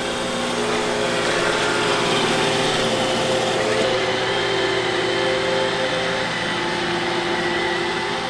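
iRobot Roomba robot vacuum running as it cleans: a steady motor whine over a hiss of suction. Its pitch shifts slightly a few times.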